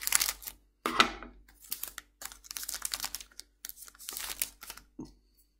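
Scissors snipping open a foil Magic: The Gathering booster pack, then the foil wrapper crinkling and rustling as the cards are worked out of it. It is a dense run of irregular crackles that stops shortly before the end.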